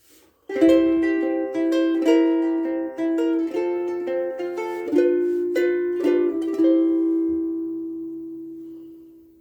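Soprano ukulele picked with the thumb: a melody of plucked notes about twice a second, the last note left to ring and fade away.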